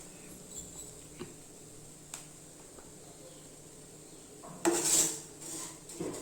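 A utensil stirring and scraping flattened rice around a kadai as it roasts in ghee: a few faint ticks at first, then a loud scraping clatter against the pan late on and a couple of shorter scrapes after it.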